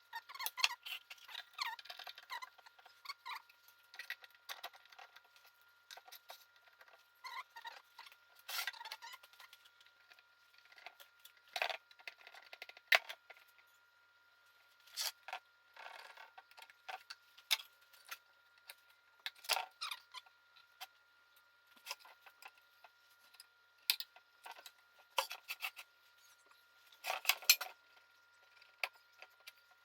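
Scissors snipping through oil pan gasket material, irregular short snips and the rustle of the gasket sheet being handled, over a faint steady high tone.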